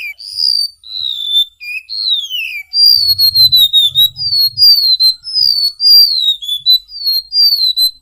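Golden-bellied gerygone (remetuk laut) singing: a string of high, thin, falling whistled notes. They come spaced out at first, then from about three seconds in as a faster, louder run of short descending whistles.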